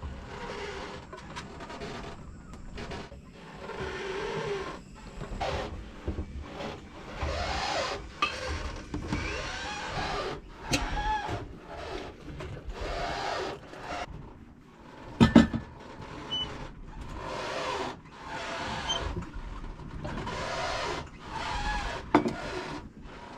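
Creaking, rubbing and knocking of a small sailing yacht rolling at anchor in swell, with short squeaks and one sharp knock about fifteen seconds in.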